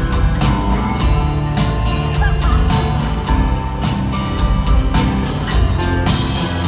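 Live rock band playing the instrumental intro of a song, with drums keeping a steady beat under electric and acoustic guitars and keyboard.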